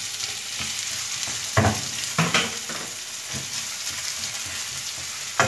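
Chopped onions sizzling in hot oil in a frying pan, with a steady hiss. They are being stirred, with several sharp knocks and scrapes against the pan, the loudest about a second and a half in and just before the end.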